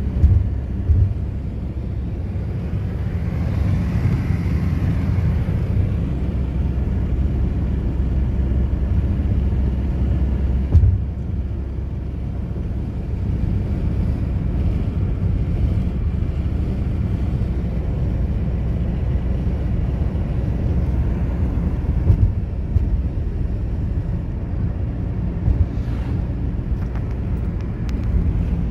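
Steady low rumble of a car driving at highway speed, tyre, road and engine noise heard inside the cabin, with a few soft thumps.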